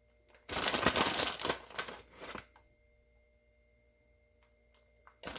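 Plastic bag of shredded mozzarella cheese crinkling and rustling as the cheese is shaken out, for about two seconds starting half a second in, and again right at the end.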